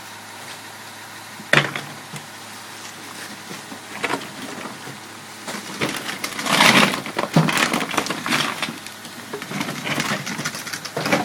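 Flood debris crunching and splintering as it is loaded into a rear-loader garbage truck. There are sharp knocks about one and a half and four seconds in, a longer loud burst of cracking and crushing in the middle, and a sharp bang near the end, over a low steady hum.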